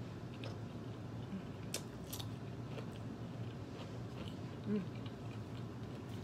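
A person chewing a mouthful of burger close to the microphone, with soft wet mouth clicks and smacks, and a brief closed-mouth hum about three-quarters of the way through.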